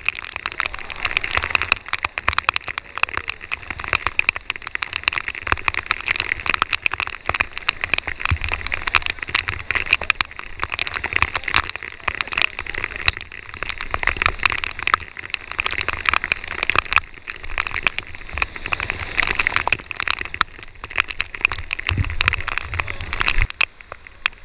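Floodwater rapids rushing and spraying around a river raft, heard from inside the boat as a dense crackling hiss with a low rumble. It drops away suddenly near the end as the raft reaches calmer water.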